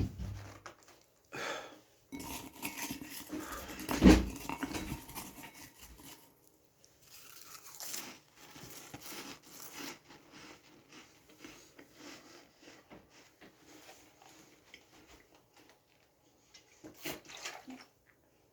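A person chewing and crunching dry crackers, with irregular crunches and mouth noises, and one louder, lower sound about four seconds in.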